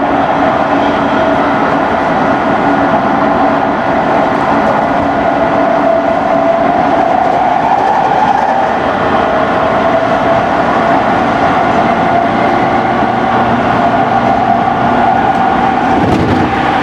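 Running noise of a JR East E217 series electric train, from motor car MoHa E216-2044: a steady whine from the motor car over continuous wheel-and-rail rumble. The whine's pitch drifts slightly up and down with the train's speed.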